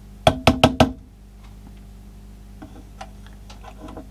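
Four quick knocks, under a second in all, on the metal front panel of a homemade bench power supply, followed a couple of seconds later by a few faint clicks.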